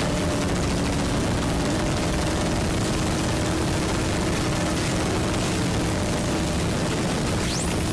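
Harsh noise music: a loud, unbroken wall of static-like noise over steady droning tones, with a sharp rising whine near the end.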